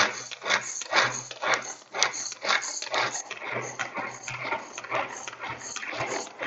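Pigeon pull-cord hand chopper being worked: the cord is pulled about twice a second, each pull spinning the blades in the plastic bowl to chop half a raw potato.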